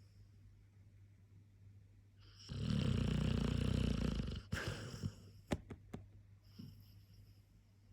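Clumber spaniel snoring in her sleep: quiet breathing, then one loud, long snore about two and a half seconds in, followed by a few faint clicks.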